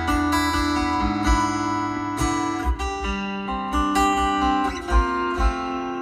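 Acoustic guitar music with deep bass thumps underneath, played through a car's upgraded audio system: three-way front component speakers and a 12-inch subwoofer.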